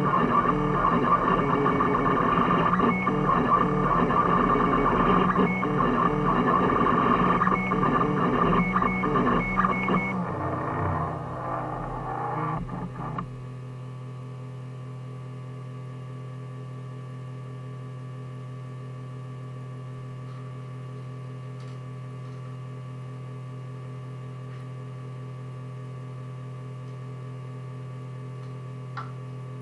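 Guitar music that fades and stops about 13 seconds in, leaving a steady low electrical hum, with a single small click near the end.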